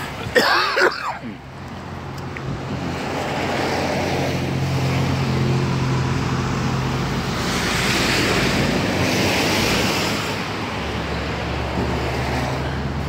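A motor vehicle's engine hums steadily under road and wind noise that swells through the middle and eases near the end. A brief, loud, pitched sound with wavering tones comes about half a second in.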